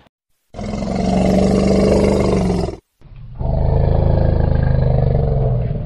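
Two long, loud roars from a large animal, each lasting a little over two seconds, separated by a brief dead-silent gap.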